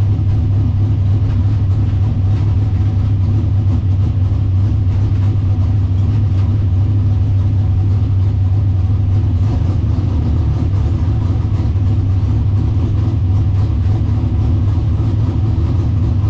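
Drag car's engine running steadily at low revs, a deep even rumble, heard from inside the stripped, roll-caged cabin as the car rolls along slowly.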